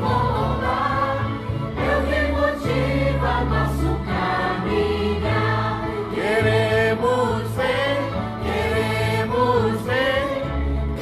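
A choir singing a gospel hymn over recorded backing music, played from a CD, with sustained bass notes under the melody.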